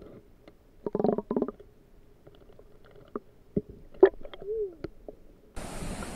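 Muffled sounds from a camera held under river water: a couple of short pitched sounds about a second in, then scattered clicks and knocks. About five and a half seconds in, these give way to a steady rush of flowing river water and wind.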